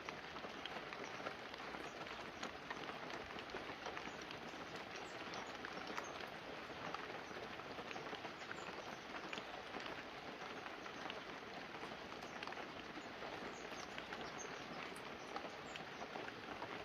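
Light, steady rain falling on banana leaves and a roof, a soft even hiss dotted with many small drips.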